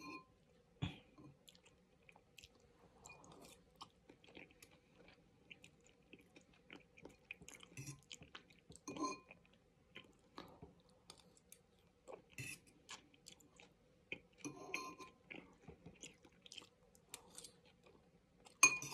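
Chewing and slurping of udon noodles, with a metal fork clicking against the bowl now and then. A handful of louder slurps and clicks stand out, the loudest near the end.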